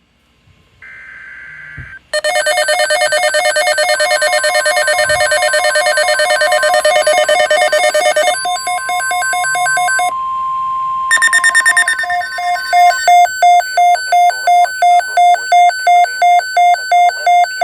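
Several NOAA weather radios sounding their alert alarms for a severe thunderstorm watch: after a short tone, loud rapid electronic beeping and chirping from the radios overlaps, a steady alarm tone joins about 8 seconds in, and from about 13 seconds a pulsing beep repeats about two and a half times a second.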